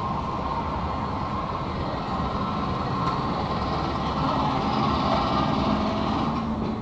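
Steady engine noise of a heavy vehicle running, with a low hum, a little louder in the second half.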